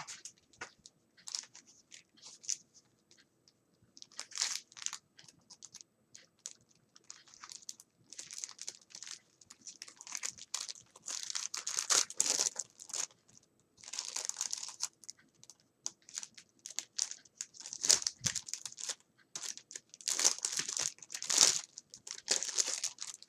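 Packaging being handled and unwrapped: wrapping crinkling and tearing in irregular rustling bursts, loudest around the middle and near the end.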